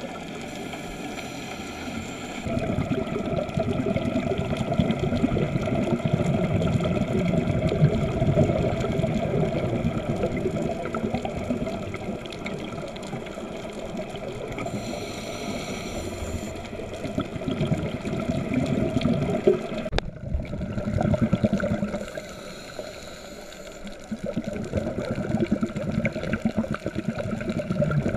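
Muffled underwater rushing and gurgling recorded through a camera's waterproof housing, with a steady hum under it. It swells and fades in level and drops out briefly about 20 seconds in.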